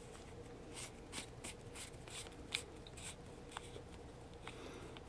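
Soldering iron handpiece being handled and reassembled: faint scattered clicks and rubbing of its plastic handle and metal threaded collar under the fingers.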